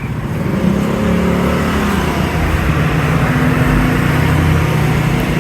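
A motor vehicle's engine running close by and picking up speed, with its pitch rising and shifting, over steady street traffic noise.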